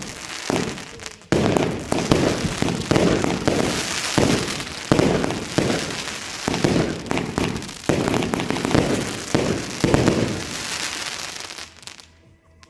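Fireworks going off in a rapid, dense volley of bangs and crackle that thins out and dies away near the end.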